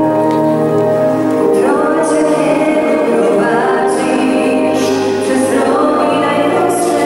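Live wedding music: a female vocalist sings a slow Polish worship song over sustained instrumental accompaniment. A held chord opens, and the voice enters about a second and a half in.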